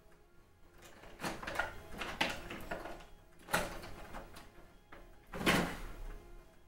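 3.5-inch floppy disk drive reading MS-DOS 6.22 setup files during installation. It gives several irregular bursts of head-seeking and grinding, the loudest near the end, over a faint steady hum.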